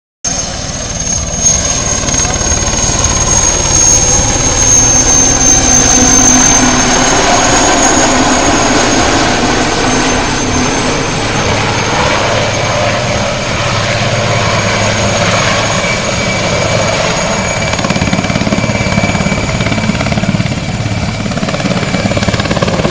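IAR 330 Puma military helicopter flying low past, its rotor noise steady and loud. A high turbine whine runs over it and dips slightly in pitch as the helicopter passes.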